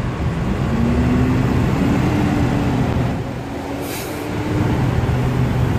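Diesel truck engine idling with a steady low hum, and a brief sharp click about four seconds in.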